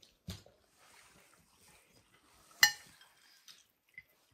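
A drinking glass clinks sharply against a hard surface once, with a brief ringing, about two and a half seconds in, amid quieter clatter of dishes and cutlery at a meal.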